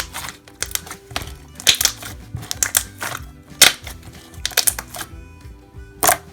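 Background music with irregular sharp clicking and popping over it, from sticky slime being mixed and stretched by hand.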